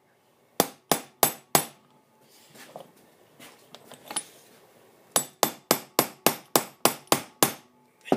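Hammer blows on a punch, driving a new head seal down into a shock absorber body. Four sharp metal strikes come first, then a pause of about three seconds, then a quick run of about ten more at roughly four a second. The seal is stiff to seat because of the oil in the shock.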